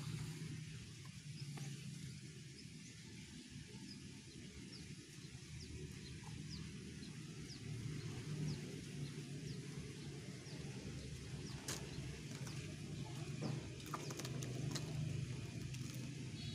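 Outdoor ambience: a steady low hum with faint short high chirps repeating roughly every half second through the first half. A few sharp clicks come in the second half.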